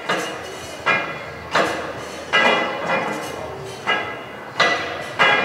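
Douglas & Grant single-cylinder Corliss mill steam engine running, with a sharp metallic clack that rings on about every three-quarters of a second in a steady rhythm.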